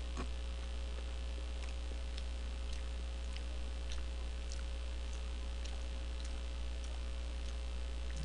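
Steady low electrical mains hum with a faint steady higher tone, and faint, irregular, brief clicks scattered through it.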